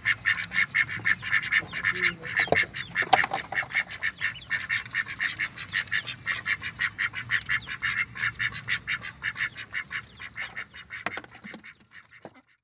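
Ducks calling: a rapid, continuous run of short high-pitched calls, about five or six a second, that fades out near the end.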